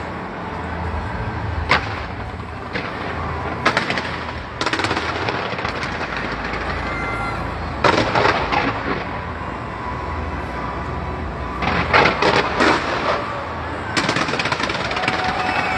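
Fireworks going off from a skyscraper display. There are single sharp bangs about two, four and four and a half seconds in, runs of rapid bangs and crackling around eight and twelve seconds, and another bang near the end, over a steady low background noise.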